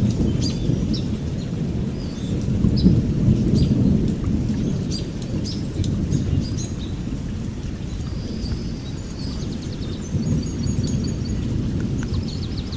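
Wind buffeting the microphone as a loud, uneven low rumble, with small birds chirping over it. A quick run of repeated chirps comes about ten seconds in.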